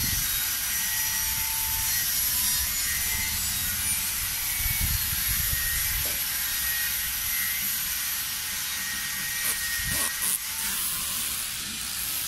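Steady outdoor background hiss with a low, uneven rumble on the microphone, and a few sharp clicks about ten seconds in.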